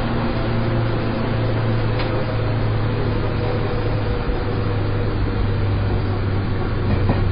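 Seibu 101 series electric train running, heard inside a motor car: a steady rumble of wheels on the rails with a strong low hum underneath, and a light click about two seconds in.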